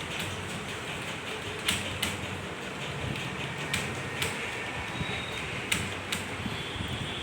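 Computer keyboard keys pressed now and then, about eight separate clicks spread unevenly, over a steady background hiss.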